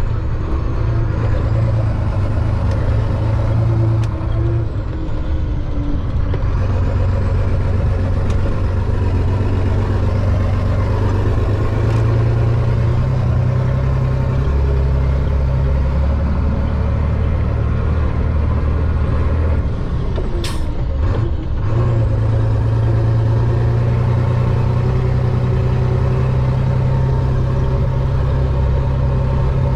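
Chenglong concrete mixer truck's diesel engine running under way, its low drone stepping up and down in pitch several times. About two-thirds of the way through there is a short, sharp hiss of released air from the air brake system.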